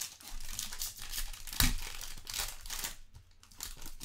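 Foil trading-card pack wrapper being crinkled and torn open by hand, with a sharp knock about a second and a half in.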